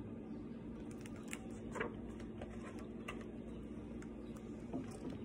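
Faint ticks and rustles of a paperback book's pages being handled and flipped, a few light clicks spread out over a low steady hum of room tone.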